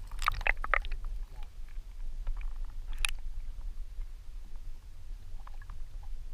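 Handling noises aboard a fishing boat: a few light clicks and knocks in the first second, then a sharper click about three seconds in, over a steady low rumble.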